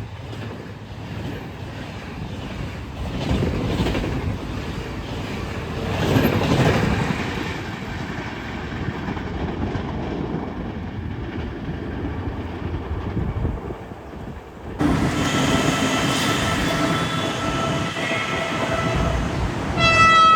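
A train running on the rails, a steady rumble with wheel clatter. About fifteen seconds in the sound changes abruptly and a train horn sounds steadily, ending in a loud blast.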